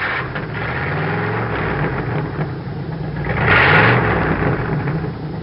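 An engine idling, with one brief rev about three and a half seconds in.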